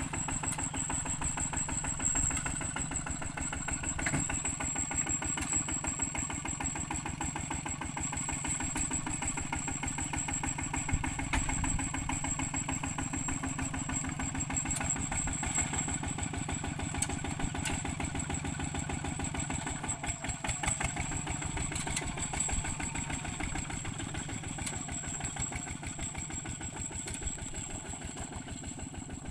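Single-cylinder diesel engine of a ZT155 two-wheel walking tractor running steadily with a rapid, even chugging as it pulls a wooden trailer. It grows a little fainter near the end as the rig moves away.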